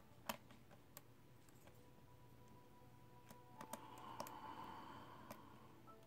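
Faint scattered clicks of a hook pick and tension wrench working the pin stack of a small 5-pin padlock, with a brief scratchy scrape about four seconds in. The pins are crunchy, which the picker puts down to serrated pins or poor machining.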